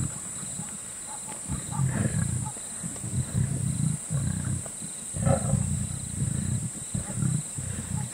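Lion roaring: a run of short, low, grunting calls, one after another about every half second to second, starting about a second and a half in.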